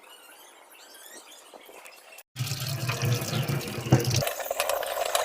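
Water running from a tap, starting abruptly about two seconds in, loud and steady, after a faint quiet stretch.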